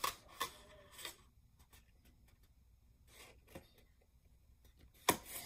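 Faint rustling and light clicks of hands handling small items from an unboxing, with one sharper click near the end.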